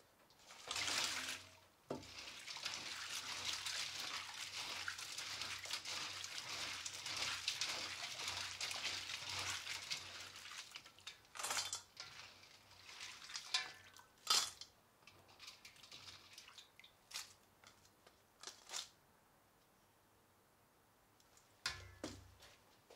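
Crawfish being rinsed by hand in a stainless steel basin of water. There is a splash as they go in about a second in, then about eight seconds of steady churning and sloshing as they are rubbed around. After that come several separate splashes and clatters as handfuls are lifted out into another steel bowl.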